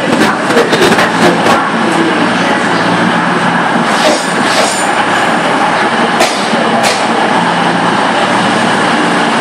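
A CrossCountry Voyager diesel multiple unit runs into the platform and passes close by. Its underfloor diesel engines make a steady low drone under a loud, even rush of noise, with sharp clicks in the first two seconds and a few more around the middle.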